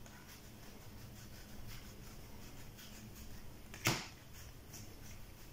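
Cardboard game cards being sorted by hand: faint sliding and light flicks of cards, with one sharp card snap about four seconds in.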